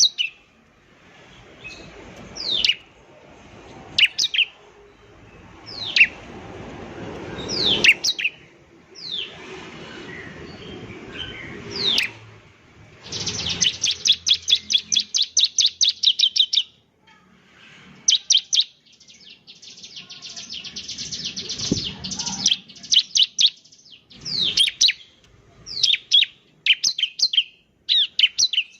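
Bar-winged prinia (ciblek) singing: sharp, downward-sliding high notes about every two seconds, then fast rattling trills of rapid notes a little past the middle, breaking into quick chipping phrases near the end, over a background rushing noise.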